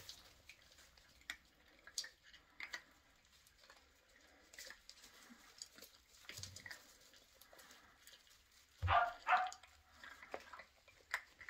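Sheltie puppies chewing dry puppy kibble from a bowl: scattered small crunches and clicks. About nine seconds in, one puppy gives a short high-pitched cry.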